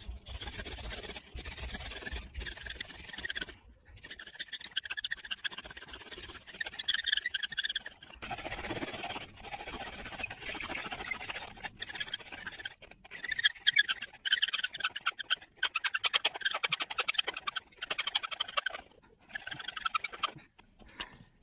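Bow drill in use: the wooden spindle grinds and squeaks in the fireboard socket as the bow is sawed back and forth, in runs of a second or two broken by brief pauses where the stroke changes direction.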